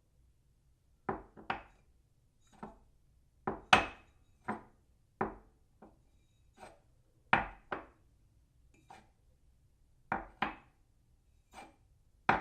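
A ceramic cup set down on its saucer again and again: a string of sharp clinks at uneven gaps, some coming in quick pairs, one about four seconds in the loudest, with a brief ring after a few.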